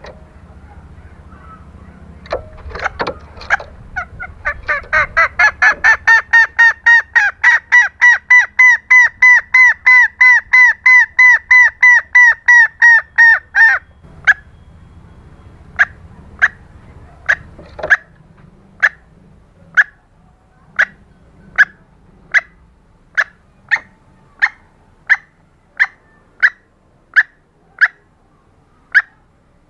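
Female green junglefowl calling, the hen's call to the male. A fast run of repeated clucking notes, about four a second, lasts some ten seconds. After a short break come single sharp notes, roughly one and a half a second.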